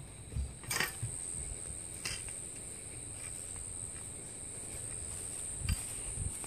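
Steady high-pitched drone of insects, with a few brief knocks and clatters, about a second in, at two seconds and near the end, from aluminium tent poles being handled.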